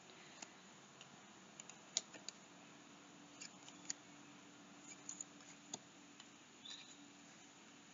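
Near silence, broken by a scattering of faint short clicks and taps as tarot cards are picked up and laid down on a table.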